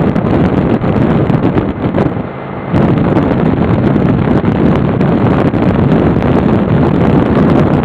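Wind buffeting the microphone of a moving motorcycle, with the motorcycle's engine running underneath. The wind eases for about half a second around two seconds in, letting the engine's steady hum show through.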